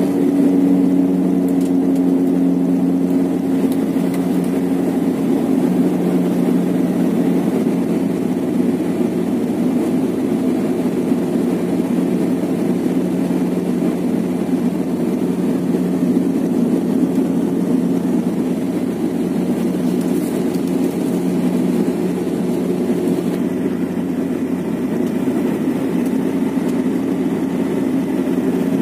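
Cabin noise of a SpiceJet Bombardier Q400 turboprop airliner in flight: the engines and propellers make a steady drone with a low, even hum, heard from inside the cabin.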